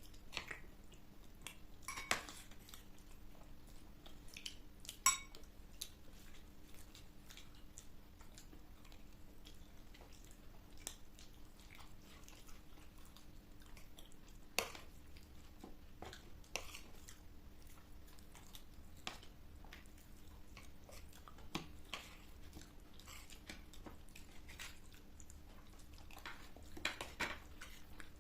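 Chewing and biting into crisp panipuri, with scattered sharp clinks of cutlery against plates.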